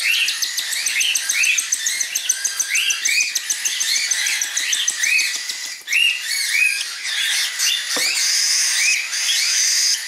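Cockatiel chicks giving harsh, rasping food-begging squawks, short arched calls repeating about twice a second without a break: hand-fed chicks that still act hungry just after a feed, because the food is sitting in their crop.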